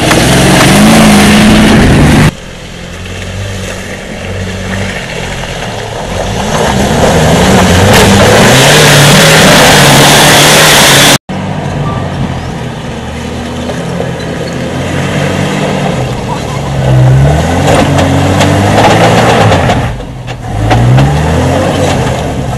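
Four-wheel-drive engines revving up and down under load on a muddy, rutted climb, a Land Rover Defender's among them. The sound drops and changes abruptly twice.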